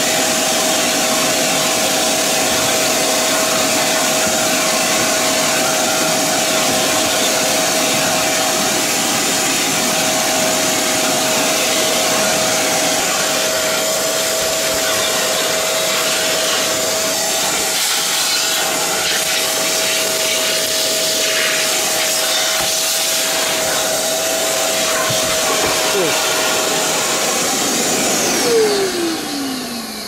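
Parkside wet and dry vacuum cleaner running steadily with a constant whine as its nozzle works over carpet. Near the end it is switched off and the motor winds down, the whine falling in pitch.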